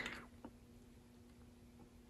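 Near silence: faint room tone with a low steady hum, and a single soft click about half a second in.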